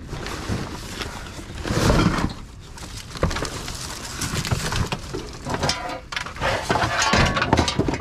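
Junk being rummaged through and shifted: irregular clattering, knocking and clinking of hard objects.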